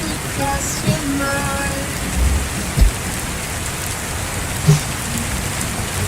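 Steady rain hiss, with a few soft low thuds and some faint musical notes underneath.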